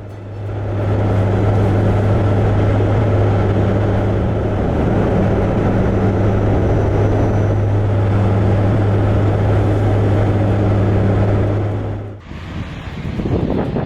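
Steady drone of a propeller aircraft: a loud low hum over a rushing noise that cuts off suddenly about twelve seconds in, giving way to gusty wind noise.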